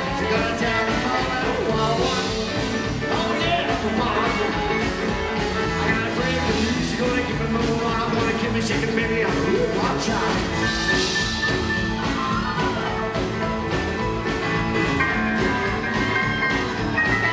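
Live rockabilly band playing an instrumental stretch at a steady, driving beat: drum kit, upright double bass, acoustic and electric guitars and an electric keyboard.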